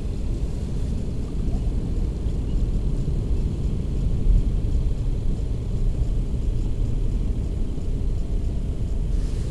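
Wind buffeting the microphone: a steady, low rumble that flutters without letting up.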